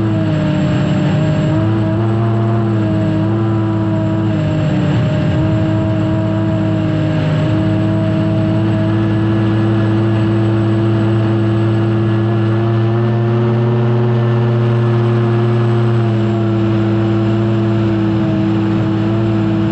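Unlimited hydroplane's Lycoming T55 turbine engine running at speed, heard onboard: a steady whine over a rush of wind and water. Its pitch dips slightly a few times in the first seven seconds, then holds steady.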